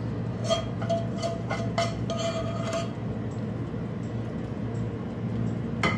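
A metal spoon clinking and scraping against a cooking pan as sauce and chicken are scooped onto a plate: a run of clinks with a short metallic ring in the first three seconds, then one louder knock near the end, over a steady low hum.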